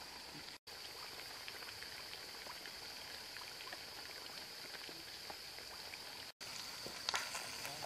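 Eel pieces deep-frying in a wok of hot oil: a steady sizzle full of small pops and crackles, with a brief burst of louder crackling near the end. The sound drops out for a moment twice.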